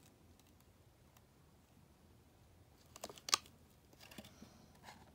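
A few light clicks and taps of small plastic toy dinosaur figures being handled, starting about three seconds in, the sharpest just after, with a few fainter ticks near the end.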